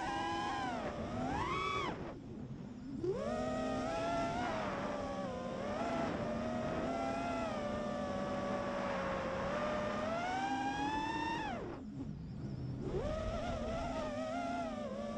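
FPV quadcopter's brushless motors whining, the pitch rising and falling with the throttle. The whine drops away twice, about two seconds in and again about twelve seconds in, then comes back.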